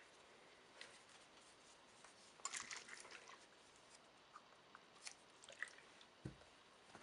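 Near silence with faint handling noises: a short stretch of light scratching about two and a half seconds in, a few soft clicks after it, and a brief low thump near the end.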